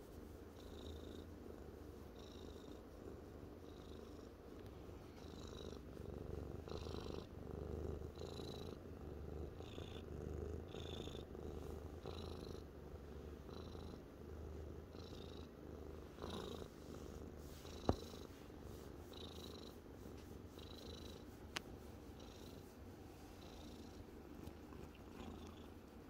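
Black-and-white domestic cat purring steadily while being stroked: a low continuous rumble with a soft hiss coming and going about every second and a half. Two sharp clicks come in the second half.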